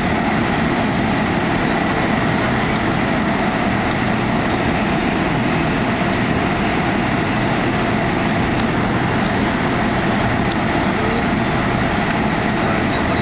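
Steady cabin noise of a Boeing 767-200 taxiing, its engines at idle: an even rush with a thin high whine held throughout.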